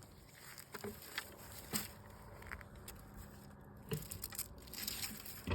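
Faint, scattered rustles and light crackles of garlic plants being handled during the harvest.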